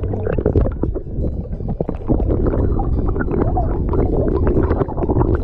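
Seawater sloshing and gurgling against a camera held at the waterline, muffled whenever small waves wash over it.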